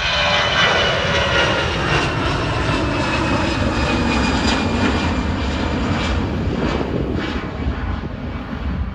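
Twin-engine Airbus A320-family jetliner climbing away just after takeoff, engines at takeoff thrust: a loud jet roar with whining tones that glide steadily downward in pitch as it recedes.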